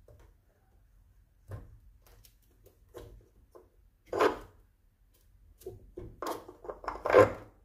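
Plastic and metal clicks and knocks as a welding-wire spool is seated on the welder's spindle, with its keyed washer and tension spring pushed on to hold it. The loudest knock comes about four seconds in, and a quick run of clicks follows near the end.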